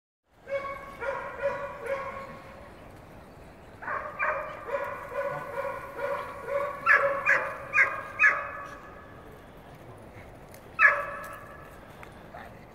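A dog whining and yipping with high-pitched calls, in two runs of rapid calls, then one loud yelp near the end.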